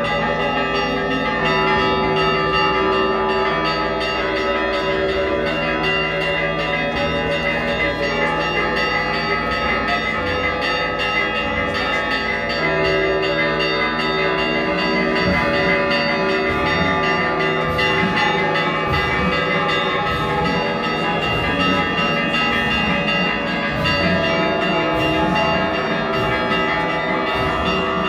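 Several church bells ringing in a fast, continuous peal, many strikes overlapping with no break.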